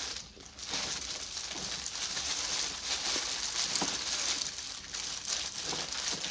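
Chewing a mouthful of pizza: a continuous run of small wet clicks and smacks.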